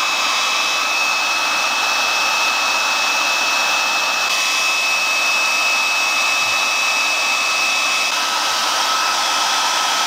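Hand-held hot-air blower running steadily, blowing hot air onto gummy bears in a silicone Pop It mold to melt them. It makes an even rushing noise with a high whine, and the whine steps down in pitch about eight seconds in.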